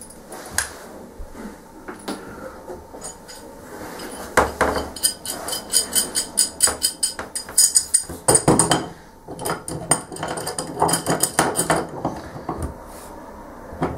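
Metal clinks and knocks of a steel adjustable spanner being handled and fitted onto the brass valve headgear of a chrome bath mixer tap, with a quick run of light clicks partway through.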